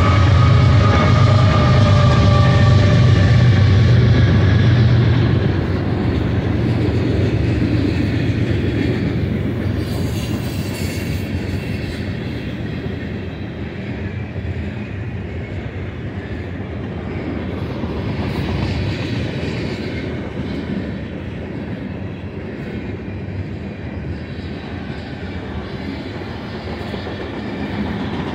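Trailing BNSF GE Evolution Series diesel locomotives (ET44C4 and ES44C4 units) pass with a loud engine drone. About five seconds in this gives way to the steady, somewhat quieter rolling rumble of freight cars going by on the rails.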